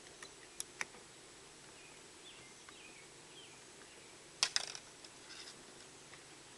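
A few light clicks and taps from handling the RC truck's plastic parts and battery, with the loudest cluster about four and a half seconds in, over faint steady room hiss.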